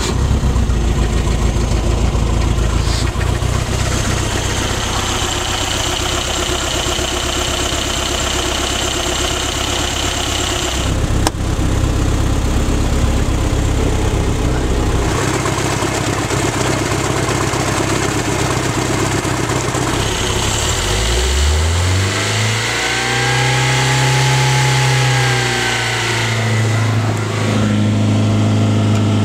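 A 2-liter Volvo four-cylinder marine engine, already a little warmed up, catches at once from the key and idles steadily. About three-quarters of the way through it is throttled up, its pitch rising, and then held at a steady higher speed of around 3000 rpm.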